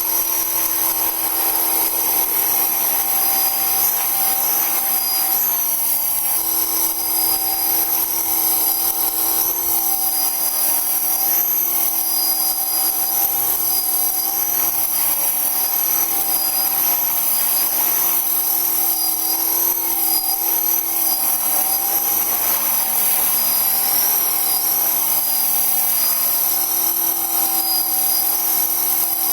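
Small electric-powered model aircraft in flight: a steady, high-pitched motor and rotor whine with a few held tones that waver slightly in pitch.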